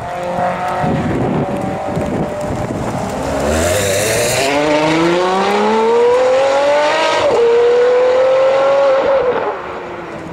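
Ferrari 599 GTO's V12 accelerating hard from low revs: the engine note climbs steadily, drops sharply at an upshift about seven seconds in, climbs again, then falls away near the end as the car draws off. A brief hiss about four seconds in as it pulls away.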